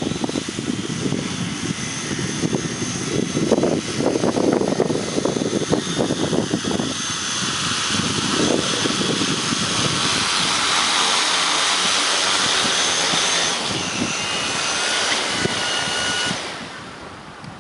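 5-litre agricultural spraying drone's motors and propellers running with a steady high whine, with wind rumbling on the microphone. Near the end the whine falls in pitch as the motors slow, and stops about 16 seconds in.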